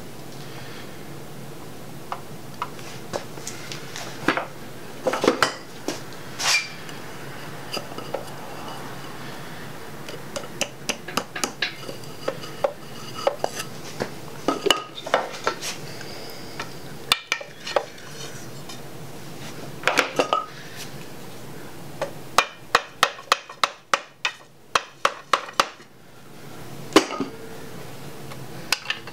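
Metal hand tools clicking and clinking on a connecting rod cap and its bolts in a 5.3L LS engine block during a rod-bearing Plastigage clearance check. Past the middle comes a quick, even run of about a dozen clicks.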